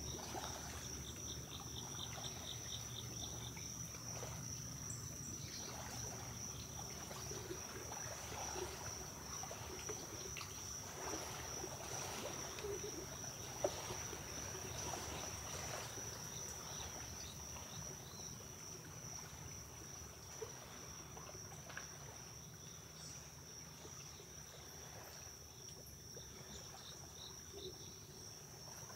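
White-tailed deer wading and feeding in shallow pond water, with irregular soft splashing and dripping as they dip their muzzles for submerged plants, mostly in the first half. Under it, insects trill steadily on one high note.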